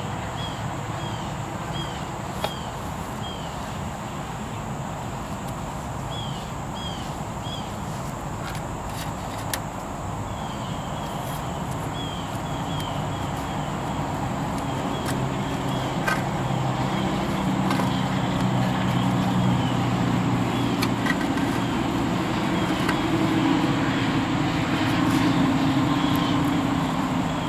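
Outdoor background with a small bird chirping in quick runs of short falling notes, and a couple of light knocks early on. In the second half a low vehicle engine hum swells and then eases near the end.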